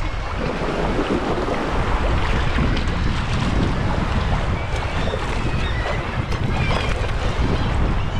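Wind buffeting the microphone over water sloshing around a sea kayak. From about halfway through, faint calls from a seabird colony on the cliff come through.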